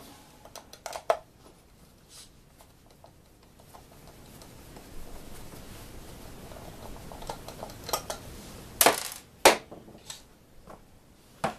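Hands working a wheel off a Maxstone 10 RC rock crawler: a low rubbing and scraping through the middle with scattered sharp clicks of plastic and metal parts, the loudest two close together near the end.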